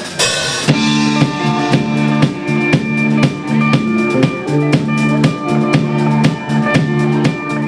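A band's song: a drum kit keeps a steady beat of bass drum and snare, about two strong hits a second, over a repeating bass line and held higher notes, opening with a cymbal crash.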